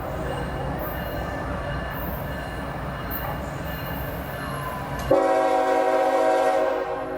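CSX freight train rumbling past, then a locomotive air horn sounds one loud chord, starting abruptly about five seconds in and held for about two seconds.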